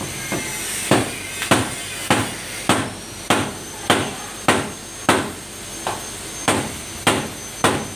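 Hammer blows in a steady rhythm, about one every 0.6 seconds, starting about a second in.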